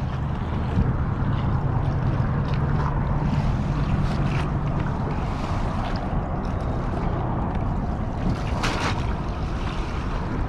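Wind buffeting the microphone and water splashing around a kayak, over a steady low hum, with a brief louder gust about three-quarters of the way through.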